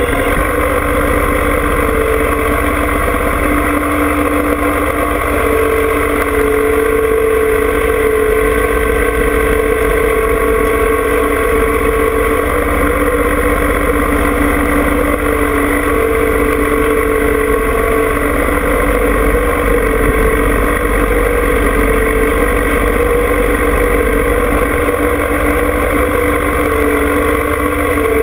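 John Deere 2305 compact tractor's three-cylinder diesel engine running steadily, a constant low drone with a steady hum.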